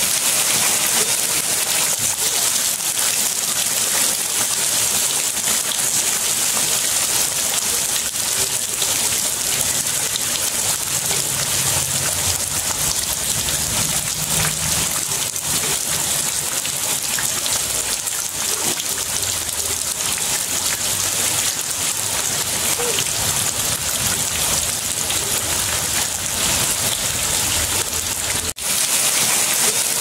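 Heavy rain pouring steadily onto a concrete slab and into puddled water on the ground, a dense even hiss of many drops splashing. It drops out for an instant near the end.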